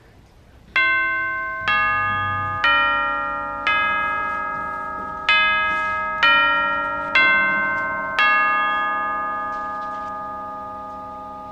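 A short melody of about eight struck, bell-like chime notes, each ringing on under the next, the last one left to fade out.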